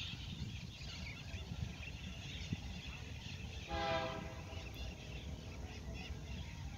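A short horn blast of about half a second from a distant GE C44EMI diesel-electric locomotive, a little past halfway, over a steady low rumble and faint bird chirping.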